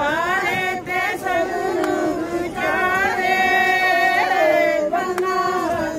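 A group of women singing together, a wedding song sung in long, drawn-out held notes.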